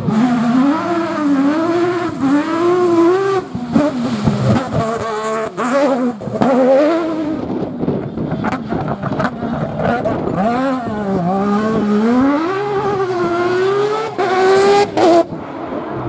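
Rally car's engine revving hard, its pitch climbing and falling again and again as the driver accelerates, lifts and changes gear. It comes as several short passes cut together, each ending abruptly.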